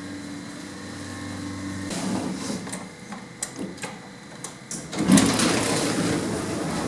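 1980s Evans lift running with a steady motor hum, then a run of clicks as it slows. About five seconds in, a louder rattling starts, the doors beginning to open.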